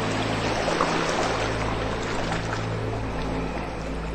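Steady running water, like a flowing stream, over a low sustained ambient drone.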